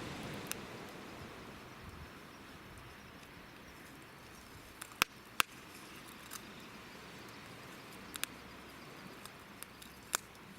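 Driftwood campfire crackling, with a handful of sharp pops scattered through it, the loudest about five seconds in and near the end, over a faint steady hiss.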